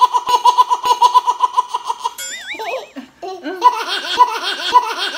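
High-pitched giggling laughter in quick, regular ha-ha pulses. A short wobbling cartoon sound effect cuts in about two seconds in, then the giggling laughter resumes.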